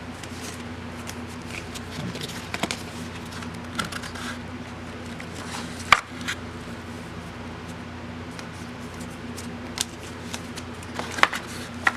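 Trading cards being handled on a table: light rustling and scattered sharp taps as cards are picked up and set down, the loudest tap about six seconds in and a few more near the end. A steady low hum runs underneath.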